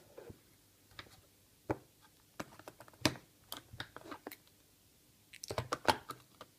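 Handling noise from a cardboard phone box and its plastic-wrapped accessories: scattered taps, clicks and rustles as fingers lift items out of the tray, with a quick run of clicks near the end.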